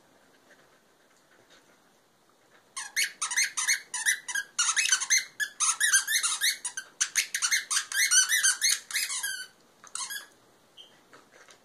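Husky puppy chewing a rubber squeaky dog toy. After a quiet start, a fast run of short squeaks begins about three seconds in, several a second for about seven seconds, with a few last squeaks near the end.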